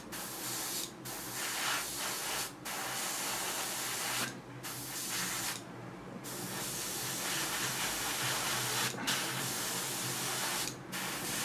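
Airbrush spraying thinned enamel paint: a steady hiss of air and paint mist that stops briefly about six times as the trigger is let off and pressed again.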